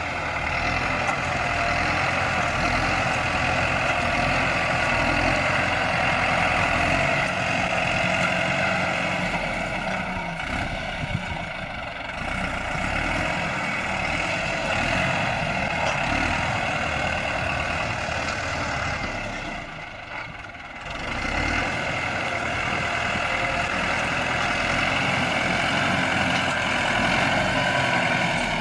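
Bulldozer's diesel engine running steadily as it pushes soil, easing off briefly twice, the second time about two-thirds of the way through.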